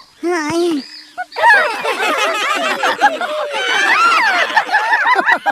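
Layered cartoon sound effects: a short wobbling tone, then from about a second and a half in a dense jumble of many overlapping sliding, chirping voices and calls.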